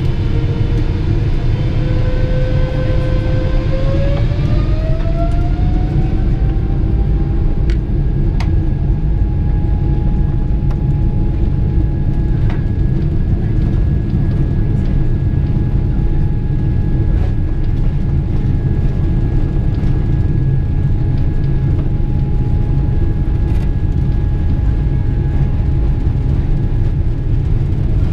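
The Boeing 777-300ER's GE90 turbofan engines at takeoff power, heard from inside the cabin: a loud, steady rumble with a fan whine that rises in pitch a few seconds in and then holds steady.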